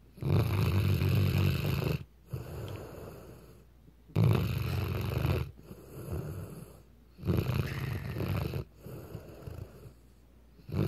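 Weimaraner dog snoring in its sleep: three loud, rattling snores about three and a half seconds apart, each followed by a softer breath.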